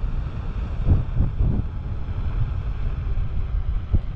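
Wind buffeting the action camera's microphone as it rides along on a moving electric unicycle: a low, gusty rumble that surges irregularly.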